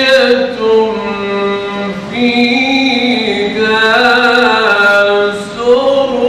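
A man's solo voice reciting the Qur'an in the melodic mujawwad style, amplified through microphones. He draws out long held notes with ornamented turns and grows louder about two seconds in.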